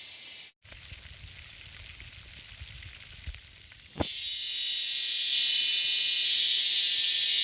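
Steady high-pitched insect drone, broken by a brief dropout about half a second in. A quieter stretch with a low rumble follows, then a click about four seconds in, after which the insect drone comes back louder and steady.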